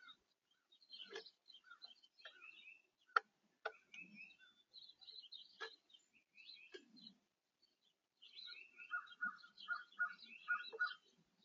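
Small songbirds chirping and calling, with a few sharp taps mixed in. Near the end, a quick series of repeated call notes, about four a second.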